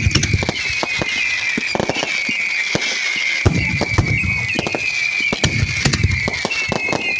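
Fireworks display: a dense run of crackling bangs, with deeper booms about every two seconds and a high whistling above them.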